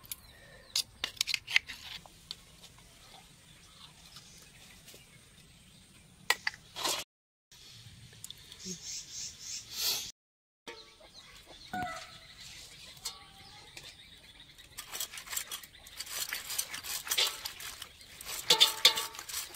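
Snail preparation by hand: sharp clicks and cracks of a knife breaking land-snail shells over a steel bowl, then, after a break, a rough, steady scraping as snail meat is rubbed with the hands on a wet stone, loudest near the end.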